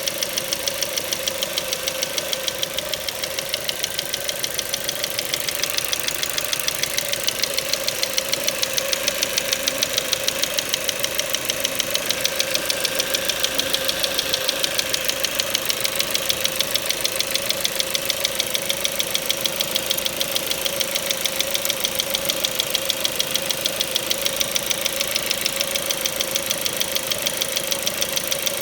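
Ford Mondeo Mk4's 2.0 Duratec HE four-cylinder petrol engine running at a steady speed with an even, rapid knocking, several knocks a second, over a steady hum. The owner has ruled out the valves and the swirl flaps and suspects the petrol injectors.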